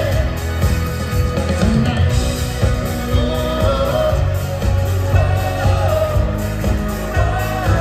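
Live rock band playing a song: drums, bass and guitars under a wavering lead melody line.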